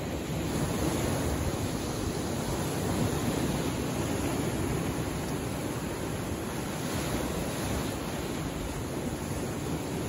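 Small sea waves breaking and washing onto shoreline rocks: a steady rush of surf, slightly louder in the first few seconds.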